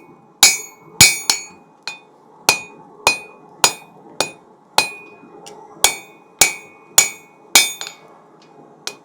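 Hand hammer striking a hot steel bar held over the anvil horn, about two blows a second, each blow with a short high ring from the steel and anvil, drawing out a knife point. The blows break off briefly about five seconds in, then carry on.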